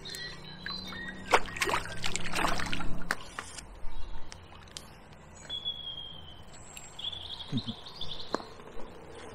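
Birds calling with short whistles. A burst of rustling and clattering handling noise lasts about two seconds, starting a second and a half in.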